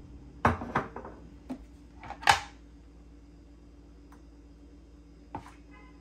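A ceramic mug set down on a tiled countertop with two sharp clinks, then a short clatter about two seconds in, the loudest sound, and a last light knock near the end as the plastic electric kettle is handled and lifted off its base.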